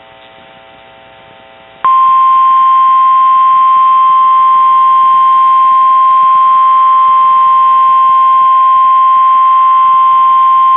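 NOAA Weather Radio 1050 Hz warning alarm tone: a single loud, steady tone that starts about two seconds in, after faint receiver hum, and cuts off sharply near the end. It is the alert signal that a warning broadcast, here a severe thunderstorm warning, is about to be read.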